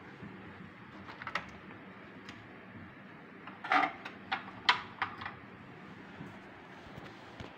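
A few short clicks and knocks over a faint steady background, a cluster of them in the middle, the loudest two about a second apart.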